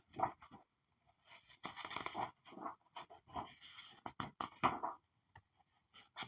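Paper pages being flipped: a string of irregular swishing rustles, some ending in a sharp snap, with short silent gaps between them.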